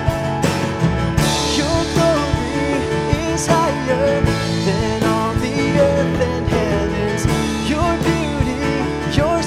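Contemporary worship song: a voice sings the melody over a band with guitar and a steady beat.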